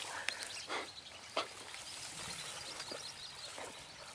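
Faint outdoor ambience: distant bird calls with a few brief knocks or rustles.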